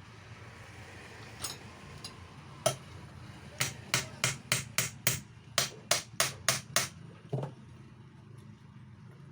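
Hammer blows on a 4SB marble cutter's bearing housing, knocking the bearing during a bearing change. A few single taps, then a quick run of about a dozen sharp strikes at roughly three a second, and one last blow, over a steady low background hum.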